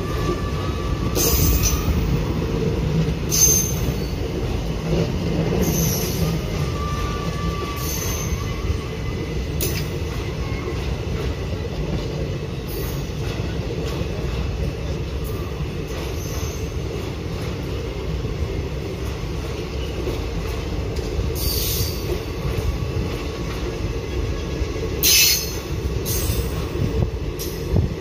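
Indian Railways passenger coaches rolling past on departure: a steady deep rumble of steel wheels on the rails. Every few seconds there is a brief, sharp high-pitched screech from the wheels.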